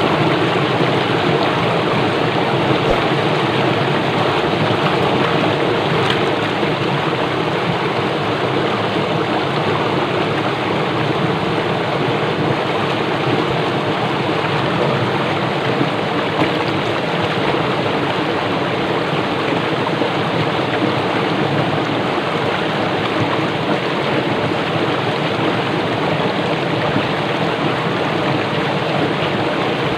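Small stream running fast over rocks: a steady, even rush of churning water.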